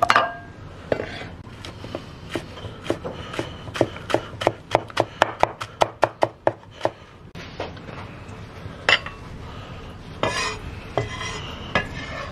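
Kitchen cleaver chopping on a wooden cutting board: a run of quick strokes at about four a second, a little faster in the middle, then the blade scraping across the board near the end.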